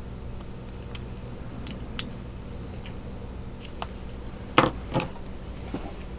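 A few light clicks and taps of small hard objects being handled on a work surface, with two louder clacks near the end, over a steady low hum.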